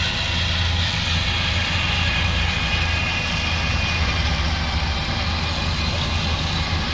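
John Deere tractor mowing grass with front and rear mowers. Its engine makes a steady drone at working revs, with a higher whine running above it.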